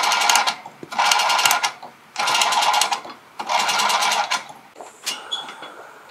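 The wick-adjustment knob of a kerosene heater is turned by hand, ratcheting in four short runs of rapid clicks as the wick is raised for lighting. About five seconds in, a brief click and then a faint hiss as a torch lighter is lit at the wick.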